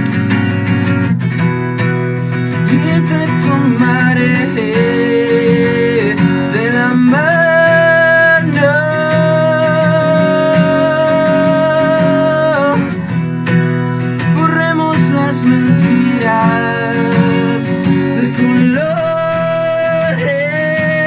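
Live band music: a male voice singing over a strummed acoustic guitar, with an electric bass underneath. The singer holds long notes, the longest starting about seven seconds in and lasting some five seconds.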